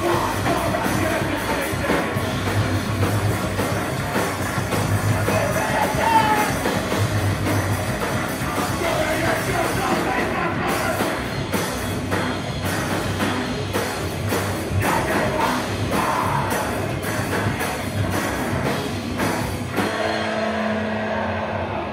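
Live hardcore band playing heavy, distorted rock: fast, pounding drums and guitars with shouted vocals. Near the end the drums drop out and a held chord rings on.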